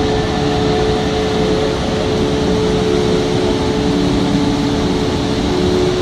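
Steady roar of the Alaknanda River in flash flood, a torrent of muddy water rushing over and through the concrete works, with a faint steady hum under it.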